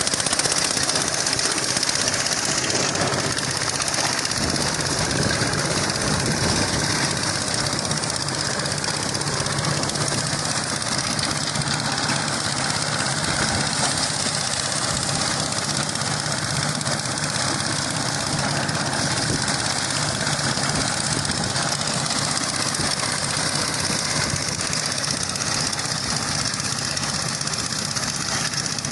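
An engine running steadily, without a break.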